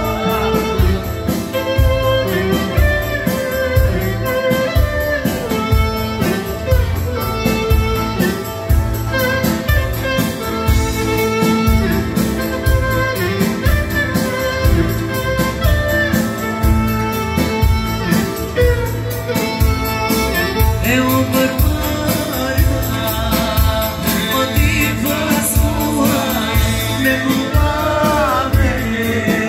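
Live band music led by a clarinet playing a wavering melody over a steady beat.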